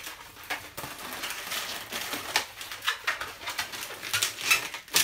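Latex modelling balloons squeaking and rubbing against each other as they are twisted into two-finger bubbles and locked together: a quick, irregular string of short squeaks.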